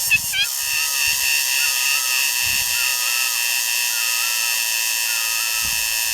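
Cicada singing: one steady, shrill buzz held without a break. A faint short call repeats about once a second underneath it.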